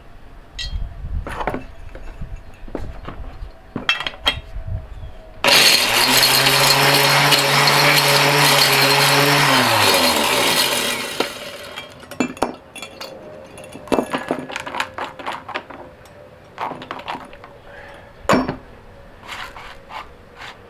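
Hard small pieces clinking and tapping as they are handled. About five seconds in, the Mighty Mill ore crusher's motor starts and runs for about four seconds with a dense rattle of electronic connectors being shredded inside. It then switches off and winds down, its hum sliding lower, and the clinking of pieces resumes.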